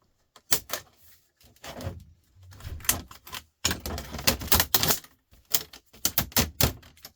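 Rapid, irregular clicking and clattering of plastic parts being pried apart and handled during a TV teardown, busiest in the middle.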